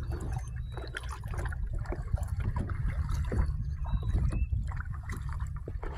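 Kayak paddle strokes splashing and dripping in the water, over a steady low rumble.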